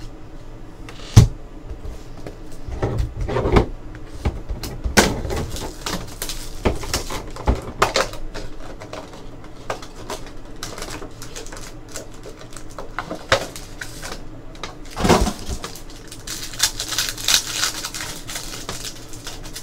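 Trading-card packs and cards being handled on a tabletop: irregular sharp clicks and taps, the loudest about a second in. About three-quarters of the way through there is a burst of crinkling as a pack wrapper is torn open.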